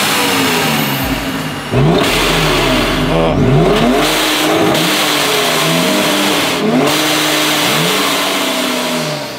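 Supercharged 2017 Jeep Wrangler's 3.6-litre V6, fitted with a Ripp supercharger, being revved several times in a row, its pitch rising and falling with each blip.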